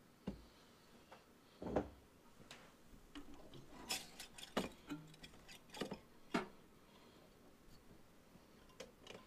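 Parts of a synthesizer keybed handled by hand: scattered faint clicks and light knocks of keys and metal frame parts, with a duller knock about two seconds in and a quick run of clicks in the middle.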